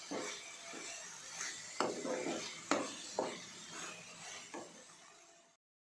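Steel spoon stirring and scraping a crumbly paneer mixture around a nonstick pan, with a few sharp knocks among the scraping. The sound cuts off suddenly near the end.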